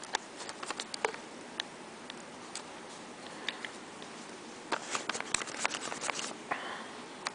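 Handling noise from the camera being picked up and moved: scattered clicks, taps and rustling, with a denser run of clicks about five seconds in.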